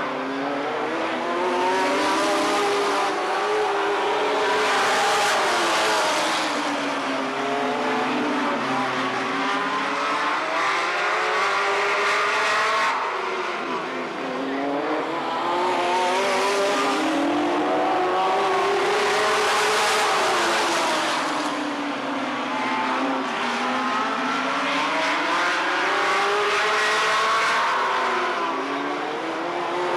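A pack of V8 Late Model stock cars racing on a short oval. The engines' pitch climbs and falls again and again every several seconds as the cars lap, and several engines are heard at once.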